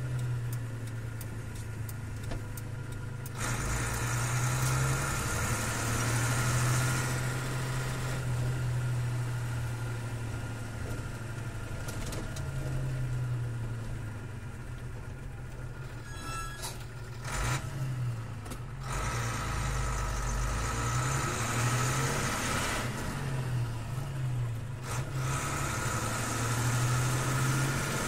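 Six-cylinder diesel engine of a 1984 Bedford 10-ton truck running steadily, heard from inside the cab, its low drone wavering slightly in pitch. Cab hiss and rattle come and go over it, with a brief run of clicks about halfway through.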